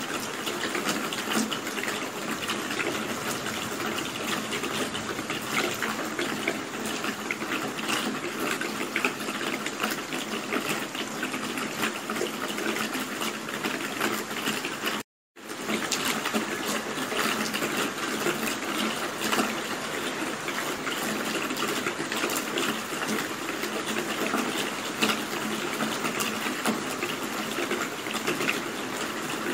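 Steady rain falling, a dense patter of drops. The sound cuts out completely for a split second about halfway through, then resumes unchanged.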